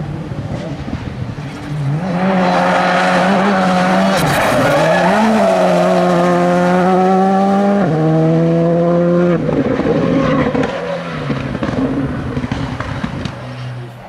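A Skoda Fabia R5 rally car's turbocharged four-cylinder engine is run hard at full throttle, loud from about two seconds in. Its pitch wavers up and down, then drops suddenly about eight seconds in with a gear change. The car lifts off about nine and a half seconds in and fades.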